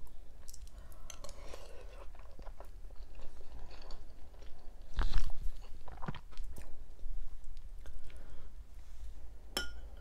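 Close-up mouth sounds of someone chewing a soft stuffed onion (dolma). Near the end, a metal spoon clinks once against a glass bowl with a short ring.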